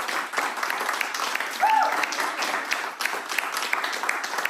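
A small group of people clapping steadily. About one and a half seconds in, a brief high note rises and falls over the clapping.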